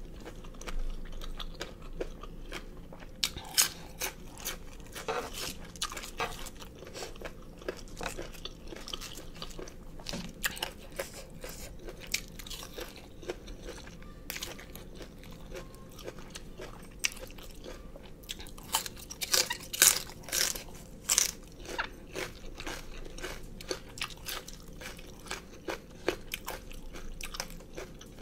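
Chewing a mouthful of crunchy pig ear and raw cabbage: sharp, crisp crunches, with the thickest run of crunching about two-thirds of the way through.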